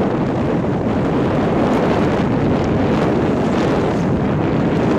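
Wind buffeting the microphone of a skier's camera during a downhill run through powder snow: a steady, loud rushing.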